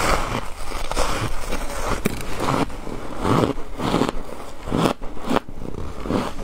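Close-up biting and chewing of shaved ice coated in milk powder, an irregular string of crunches.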